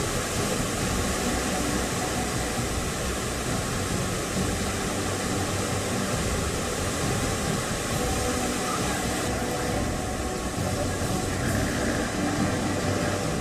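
Steady rushing roar of a fast, flood-swollen river: an even wash of noise with no pauses or separate events.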